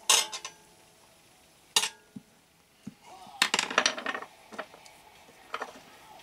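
Scattered clinks and taps of small metal hand tools, a pointed poking tool and an embossing stylus, being handled and pressed into foil tape to make faux rivets: a few single sharp clicks with a busier run of them about three and a half seconds in.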